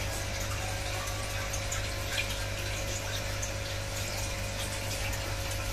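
Aquarium filter and pump running: a steady trickle and wash of circulating water over a constant low hum.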